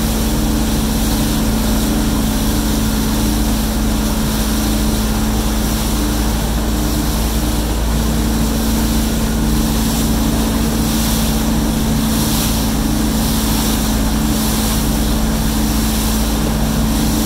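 A wake boat's engine running steadily at one unchanging pitch while under way, over the rush of water churned up in its wake.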